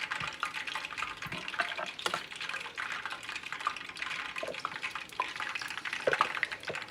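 Hot frying oil in a pan sizzling and crackling, with scattered pops and a few light knocks.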